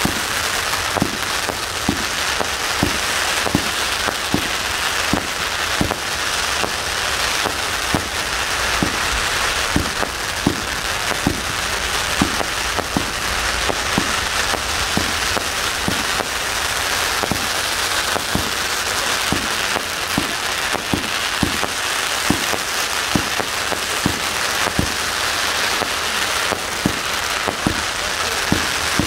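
Consumer 200-gram fireworks going off in a continuous barrage: a dense, steady crackle with sharp bangs about one or two a second.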